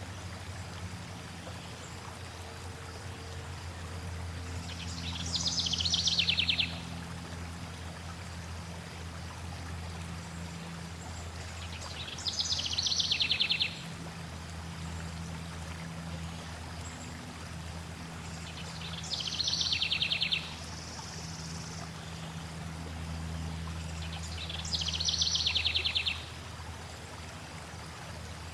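A songbird sings the same short phrase four times, about six or seven seconds apart. Each phrase falls in pitch and ends in a rapid trill. Under it is a steady low rush of flowing water.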